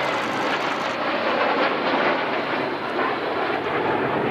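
Jet noise of a formation flypast, an Embraer KC-390 transport with its twin turbofans and two escorting fighter jets, heard as a loud, steady rushing that swells slightly as they pass.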